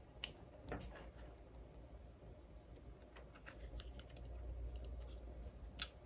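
Faint, scattered small clicks and taps of hands handling an A76 LED flashlight as it is turned over, over a low steady rumble.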